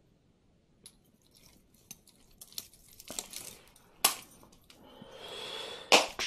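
Pieces of costume jewelry clinking and clacking as they are picked through by hand: a few light clicks, a louder clack about four seconds in, then a rustle and another sharp clack near the end.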